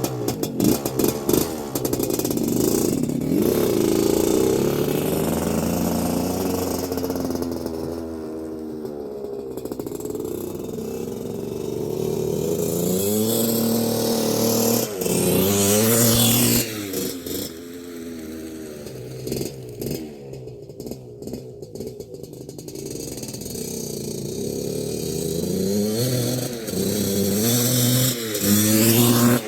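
1981 Suzuki RM125X two-stroke single-cylinder dirt bike engine being ridden, revving up and down through the gears. It runs on a rich break-in mix after a rebuild. It gets louder about halfway through and again near the end, then drops off quickly.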